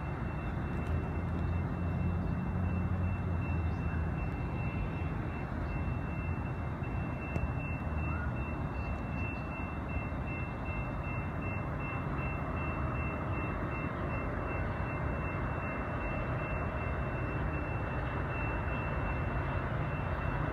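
Low, steady rumble of a distant approaching commuter train, with a thin, steady high-pitched tone over it.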